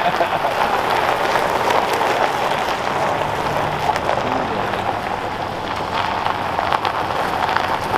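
Pickup trucks rolling in over a gravel driveway: a steady crackling crunch of tyres on stones, with engines running low underneath.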